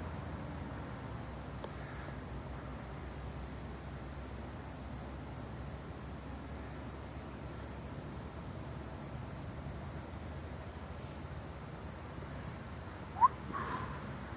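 Steady outdoor night ambience: a continuous high insect trill over a low, even rumble of background noise. Near the end comes one brief, loud rising chirp.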